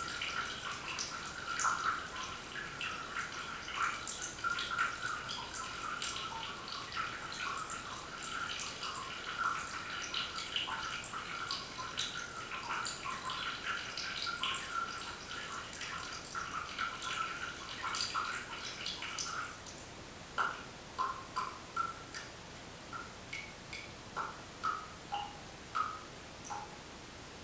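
Water dripping from a hanging glass tube into a glass bowl: a rapid, continuous patter of drops that thins out about 20 seconds in to separate drips, about two a second.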